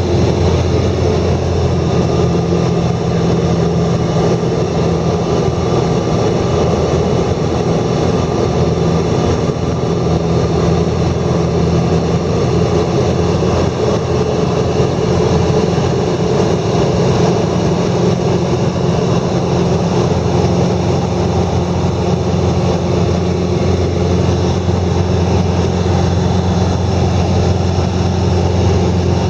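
An engine running steadily at a constant low speed with a deep hum, unchanged throughout.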